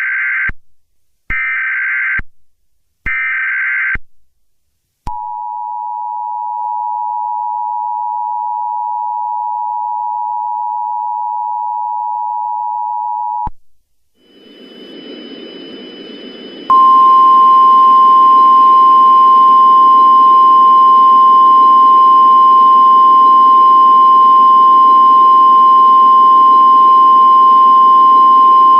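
Emergency Alert System tones: three short bursts of screeching SAME digital header data, then the two-tone attention signal held steady for about eight seconds. It cuts off, static hiss rises, and a few seconds later a loud single steady weather-radio alert tone starts over the hiss.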